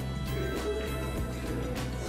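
Background music with steady held notes and a bass line.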